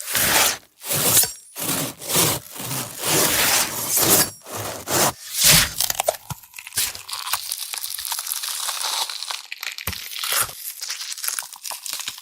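Gore sound effect: a series of loud crunching, cracking bursts through the first half, then a quieter stretch of quick, light crackling.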